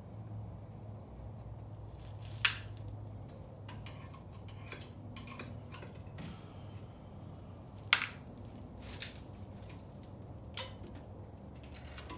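Metal clicks and clinks of a valve spring compressor at work on a cast-iron Ford GT40 cylinder head as it is taken apart, with two louder sharp clacks, one a couple of seconds in and one about two-thirds of the way through, over a steady low hum.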